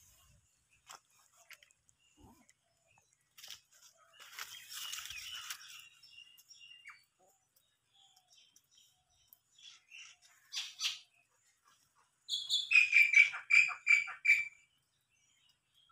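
A kitten's claws scrabbling on tree bark as it climbs, heard as scratchy rustling. Near the end comes a quick run of about eight short, high chirps, at about four a second.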